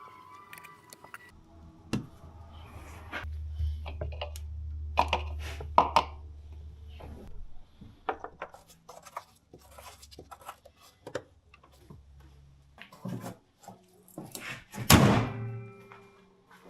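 Scattered clicks and knocks of hands and tools working on a car, over a steady low hum for several seconds, then one loud thunk near the end.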